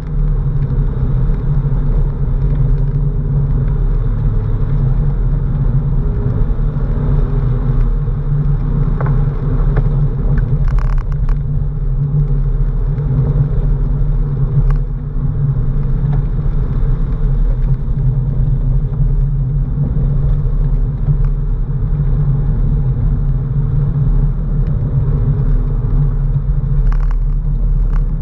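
Porsche 997's flat-six engine and its tyres on the wet road, heard from inside the cabin as a steady low drone while cruising, with a few faint clicks.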